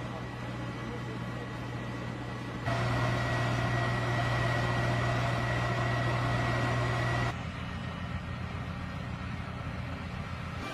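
Steady low machine hum with a thin high whine from an air-defence vehicle's engine and equipment. It gets louder about three seconds in and drops back abruptly about seven seconds in.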